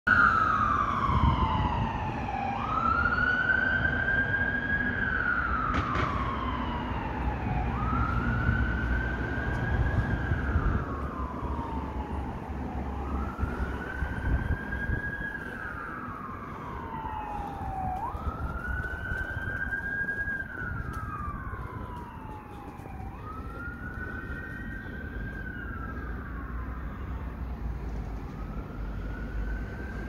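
Ambulance siren on a slow wail: the tone jumps up quickly, then slides slowly down, repeating about every five seconds and growing fainter as the ambulance drives away. Low traffic rumble runs underneath.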